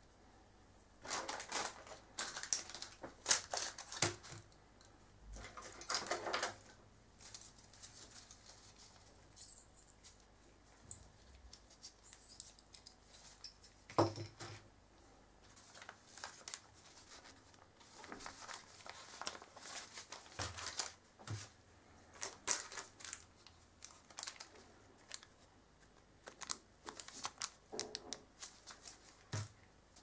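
Close handling noises on a tabletop: first-aid packets in paper and plastic wrappers rustling and crinkling, and small items set down with light clicks. There is one sharper knock about halfway through.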